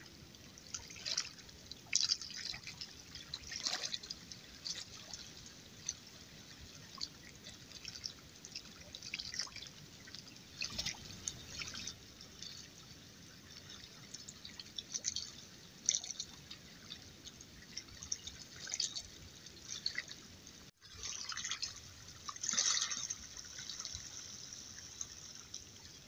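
Faint, irregular tinkling and trickling of broken ice pans and slush shifting in the water at a lake's edge, a scatter of small high clicks with a busier patch near the end.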